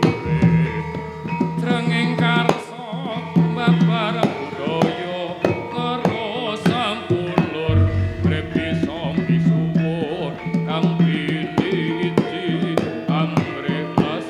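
Javanese gamelan playing a gending, with frequent kendang hand-drum strokes over held bronze tones and a wavering melodic line above.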